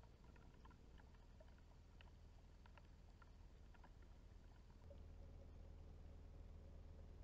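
Faint rain heard through a trail camera's microphone: scattered drops ticking over a low hiss. About five seconds in, the background turns slightly louder and steadier, with a faint hum.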